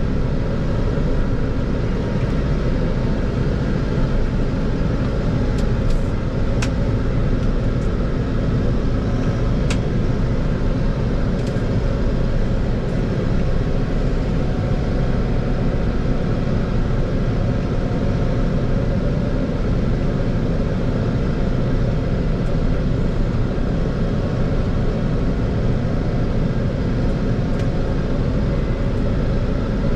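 Fendt 412 Vario tractor's diesel engine running steadily under load, heard from inside the cab, with a few faint ticks about six to ten seconds in.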